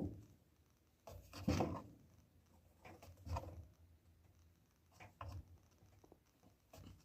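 Scattered knocks and rubs from hands working on dryer parts: about five short handling sounds, the loudest about one and a half seconds in.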